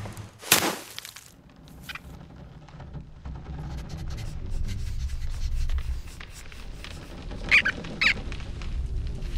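Cartoon sound effects: a thud about half a second in, then a low rumble that builds, and two short high squeaks near the end.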